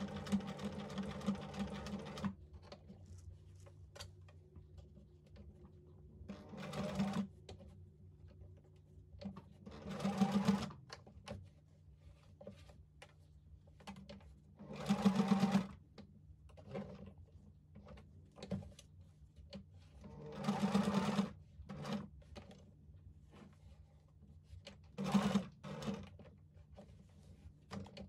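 Singer electric sewing machine stitching through felt in about six short runs of one to two seconds each, stopping and starting, with faint clicks in the pauses between runs.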